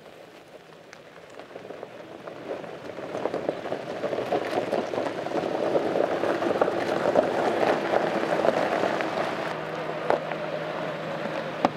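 Fourth-generation Suzuki Jimny rolling slowly over a loose stony track, its tyres crunching and popping on the gravel, with its 1.5-litre four-cylinder petrol engine running low underneath. The crunching grows louder over the first half as the Jimny draws near, then holds steady.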